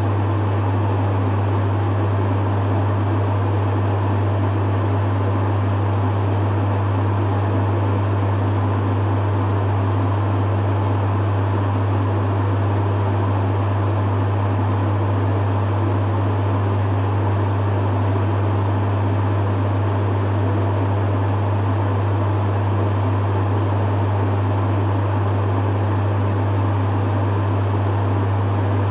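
Dehumidifier running steadily: a strong low hum with an even rush of fan noise over it, unchanging throughout.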